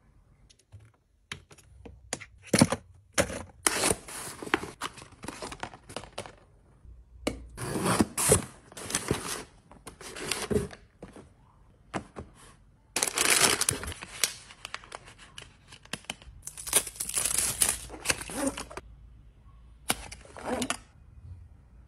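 Cardboard box and paper product cartons being handled and opened: rustling, crinkling and tearing in irregular bursts, with a few sharp clicks and taps between them.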